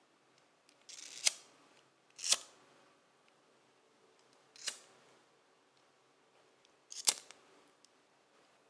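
Lighter being struck four times, each strike a sharp scraping click; the first and last have a short rasp just before the click, and the third is softer.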